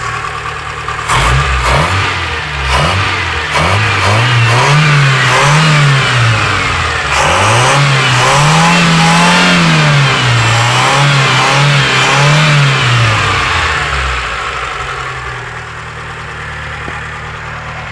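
4G13P inline-four car engine idling, then revved repeatedly, its pitch rising and falling with each blip, before settling back to idle near the end. The engine has a knocking noise which the owner suspects comes from a valve clearance problem.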